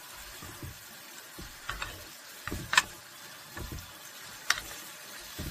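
Stir-frying enoki mushrooms, onion and tuna in a nonstick pan with two wooden spatulas: a faint steady sizzle under a few sharp clicks of wood against the pan, the loudest nearly three seconds in.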